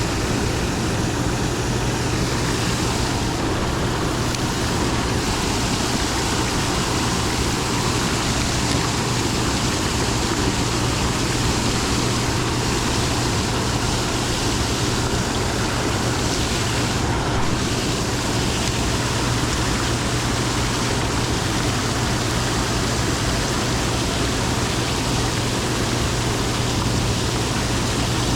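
Steady rush of high, fast-flowing dam tailwater, an even unbroken wash with a constant low hum beneath it.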